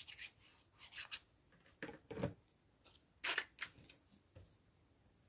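Cardstock being handled: a few short paper rustles and rubs as a small paper label is glued and pressed down onto a card tag, the two loudest about two and three seconds in.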